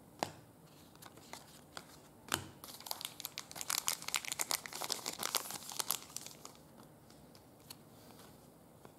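Trading-card pack wrapper crinkling as it is torn open and handled, a few light clicks first and then a dense run of crackling from about two and a half to six seconds in.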